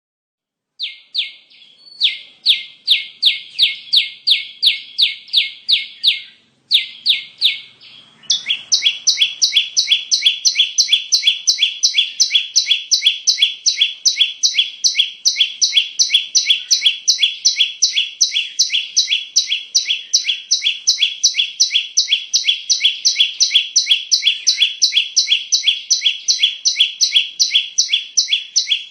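Prinia (perenjak) lure call: a fast, even series of sharp chirps, a few a second, starting about a second in with two short breaks. From about eight seconds in, a second, higher series overlaps it and the chirping runs on unbroken.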